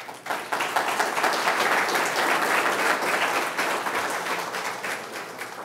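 A roomful of people applauding: dense clapping that starts abruptly and thins out near the end.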